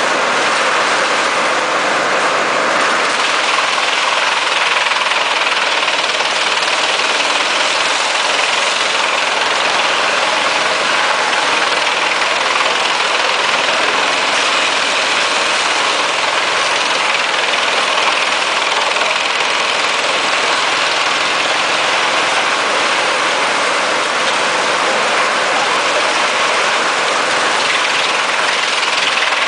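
Forest drum wood chipper's diesel engine running steadily: a loud, even mechanical noise with no breaks.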